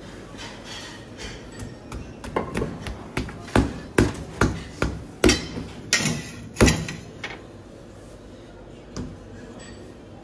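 About ten sharp knocks in a quick, uneven run, like blows struck on a hard surface, with one more knock a couple of seconds after the run ends.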